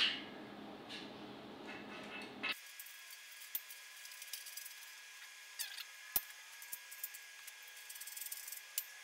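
A hand tool turning a screw in a steel bearing bracket, giving a few faint, scattered metallic clicks and scrapes.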